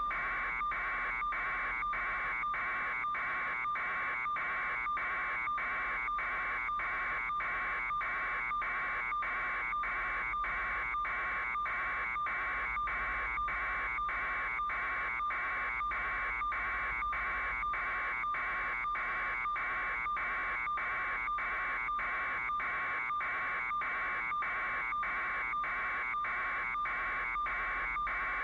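Steady electronic buzz, broken by brief, evenly spaced dropouts about three times every two seconds.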